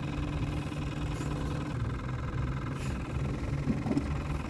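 A small electric motor humming steadily, with a brief low bump near the end.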